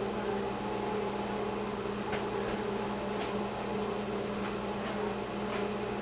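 A steady low hum with hiss and a few faint ticks, with no speech or music: the background noise of VHS tape playback between trailers.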